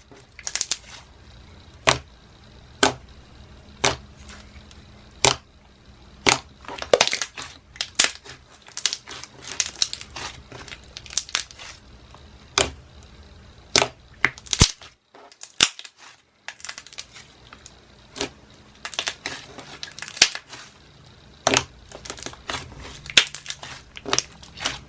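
Thick, glossy white glue slime being played with by hand, air bubbles popping in sharp, irregular clicks, with a brief near-silent break about fifteen seconds in.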